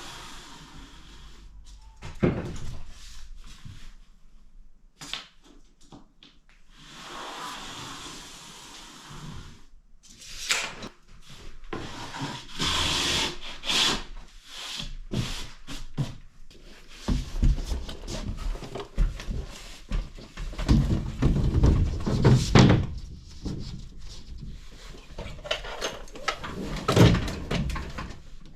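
Wood being handled in building work: scattered knocks, bumps and scrapes, with two short rasping stretches and heavier thumps in the second half.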